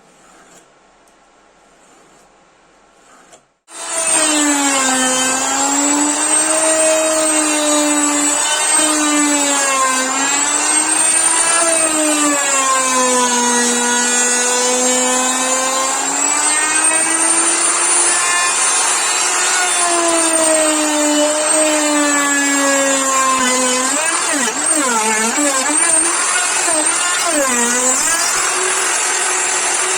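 Electric woodworking power tool switched on about four seconds in, its motor whine holding a strong pitch that sags and rises as the load on it changes, with a wobblier stretch near the end; it cuts off right at the end.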